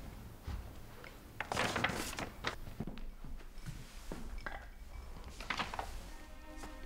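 A manila paper envelope being handled, in several short scattered rustles of paper.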